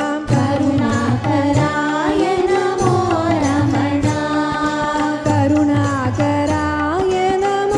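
Devotional song sung by devotees: a gliding sung melody over a steady held drone, with regular drum strokes.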